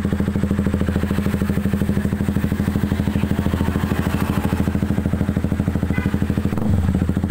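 KTM RC 200's single-cylinder four-stroke engine idling steadily through an aftermarket SC Project-style stainless slip-on muffler, a deep, evenly pulsing exhaust note.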